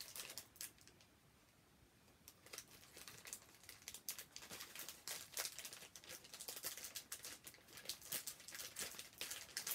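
Clear plastic packaging crinkling and rustling as it is handled and opened by hand, in quick irregular bursts that begin about two seconds in.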